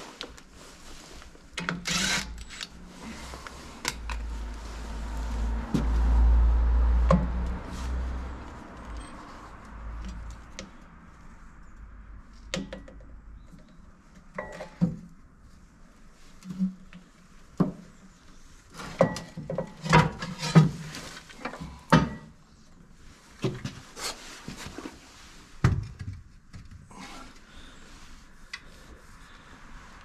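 Sharp metal clanks, knocks and scraping as the clutch unit of a Deutz DX90 tractor is worked loose and lifted off the flywheel by hand. A low rumble comes about four seconds in and lasts a few seconds, and a quick run of loud knocks comes around twenty seconds in.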